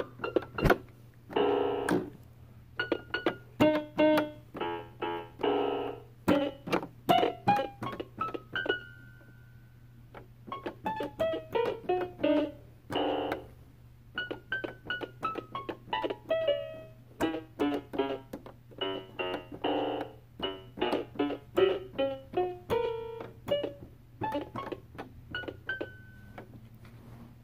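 A child picking out notes on a keyboard: single notes and now and then a chord, played haltingly in an uneven rhythm with short pauses, the playing of a beginner.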